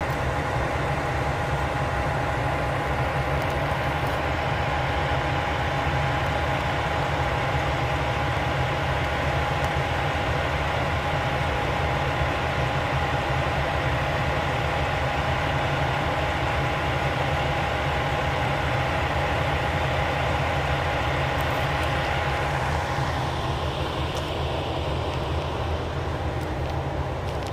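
Kyoto Tango Railway KTR8000 diesel railcar standing with its diesel engine idling: a steady low rumble with a steady whine above it.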